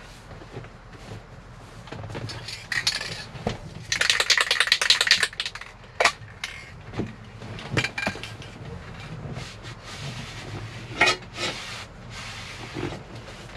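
Cloth towels rustling and small hard objects clicking and clattering as the base of a truck's gear shift lever is wrapped for masking, with a fast rattling burst about four seconds in and shorter clatters later.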